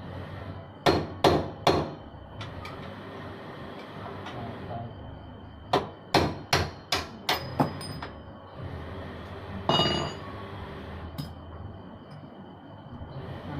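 Hammer strikes during motorcycle repair work: three quick knocks about a second in, a run of six or seven about six seconds in, then a couple more single knocks later.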